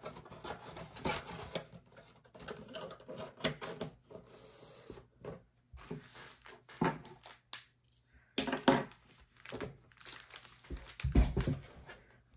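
Cardboard blaster box and wrapped trading-card packs being handled: irregular rustling and scraping of the wrappers, with knocks as the packs are set down on the tabletop, the heaviest about eleven seconds in.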